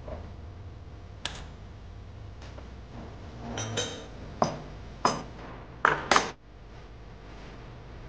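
Glassware clinking: a scattering of sharp glass knocks with brief ringing, one about a second in and most between about three and a half and six seconds in, the last two loudest and close together.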